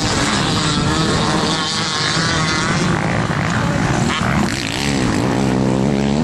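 Motocross dirt bike engines racing, their pitch rising and falling as the riders work the throttle.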